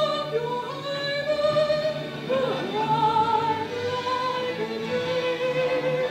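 A woman's operatic voice singing long held notes with vibrato over an orchestra; one note is held from about four seconds in until the end.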